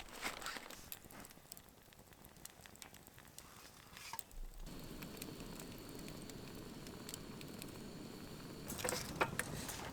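Food sizzling and a fire crackling, as in cooking over a campfire: scattered pops at first, then, after an abrupt change about halfway, a steadier sizzle, with a few sharp pops near the end.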